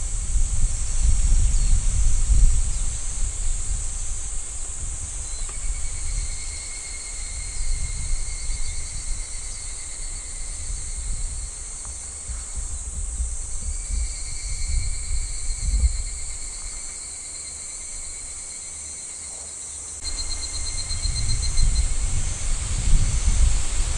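A steady high-pitched insect chorus, with a second, lower insect trill that comes in about a quarter of the way through, breaks off and returns, pulsing near the end. Wind buffets the microphone in gusts and is the loudest thing heard.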